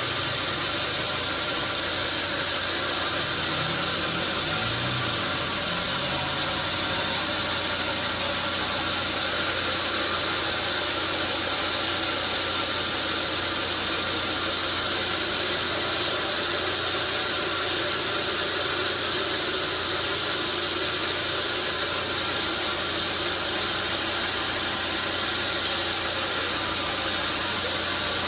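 Sawmill machinery running steadily: an engine-driven saw giving a constant noisy hiss over a low engine hum.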